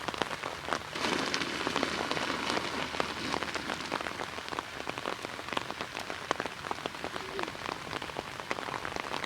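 Rain falling hard, pattering on surfaces close to the microphone with many separate drop hits.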